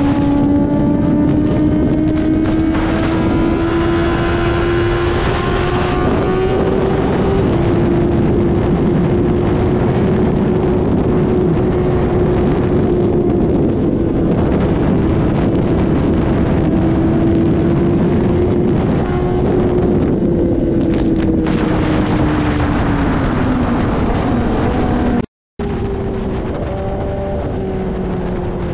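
Inline-four sport bike engine heard onboard at steady highway speed, with wind rushing over the microphone. Its note holds high and rises a little, then drops as the throttle eases about twenty seconds in. The sound cuts out for a split second near the end.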